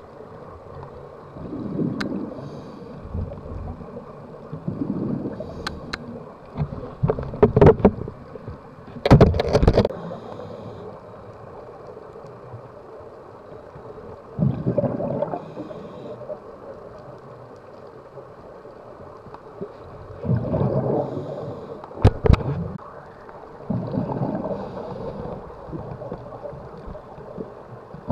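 Scuba diver breathing through a regulator underwater: a burst of exhaled bubbles gurgles and rumbles every few seconds, with a few sharp clicks among them.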